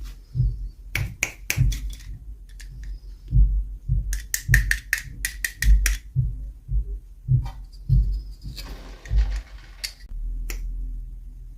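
Small plastic toys and packaging being handled: quick runs of sharp clicks and taps over soft thumps, with a brief rustle near the end.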